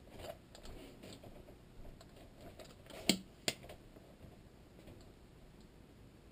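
Quiet handling of a metal hand injector as it is dipped into a glass jar of hot plastisol and filled, with two sharp clicks less than half a second apart near the middle.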